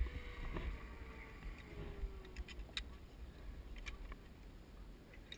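A sharp click right at the start. Then a zipline trolley runs out along the steel cable with a faint, slowly falling whine as it slows into the tree platform. Scattered light clicks of carabiners and harness gear follow, over a low wind rumble on the microphone.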